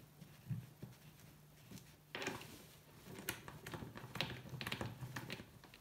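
Rubber tie-down strap being stretched around a plastic ventilation-duct tube and hooked onto the ATV's rack: a couple of soft knocks, then from about two seconds in a run of clicks, taps and rubbing.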